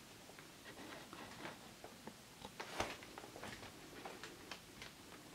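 Faint, irregular small clicks and taps from a laptop being held and turned in the hands, over quiet room tone; the clearest click comes a little under three seconds in.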